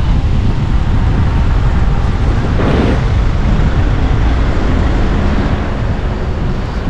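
Wind rumbling on the microphone during a ride on a folding bicycle, mixed with city traffic noise. About three seconds in there is a brief louder whoosh.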